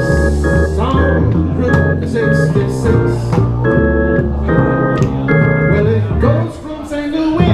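Jazz organ playing held, sustained chords over a walking upright-bass line in a live jazz trio's instrumental passage, the music dipping briefly near the end.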